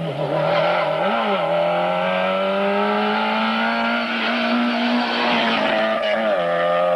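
Talbot Samba rally car's four-cylinder engine pulling hard, its revs climbing steadily for several seconds. Just before the end the pitch drops suddenly on an upshift and starts climbing again.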